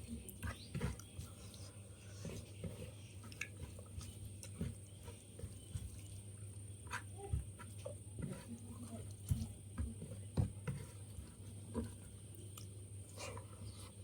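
Close-up wet chewing and mouth sounds of a person eating rice and catfish paturi: irregular soft smacks and clicks, with a few sharper ones around the middle. A steady low hum runs underneath.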